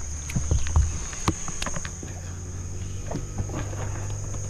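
Steady high-pitched insect drone over a low steady hum, with scattered short knocks.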